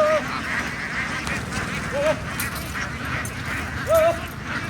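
A large flock of farm ducks calling together: a dense, continuous chatter of quacks, with single louder calls standing out about every two seconds.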